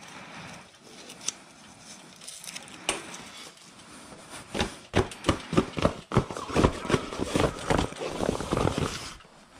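A folding cart's fabric liner rustling and thumping as hands pull it over the aluminium frame and smooth it flat, with light clicks at first. About halfway through it turns into a dense run of louder rustles and thumps.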